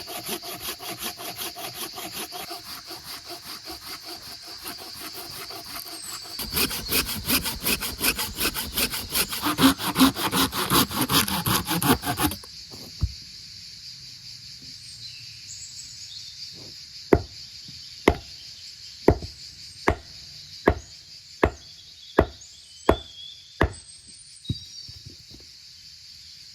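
Hand saw cutting through wood in quick, steady strokes that grow louder and faster, then stop suddenly about halfway. A few seconds later come about ten evenly spaced hammer blows on wood, under a steady high chirring of insects.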